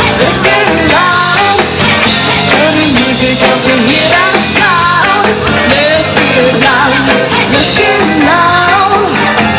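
A live band playing loud, upbeat music with a singer's voice over it.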